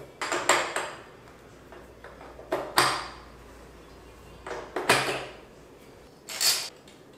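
Metal clinking and knocking in four short bouts a second or two apart, as a starter motor is fitted into a Yamaha XT225 motorcycle engine.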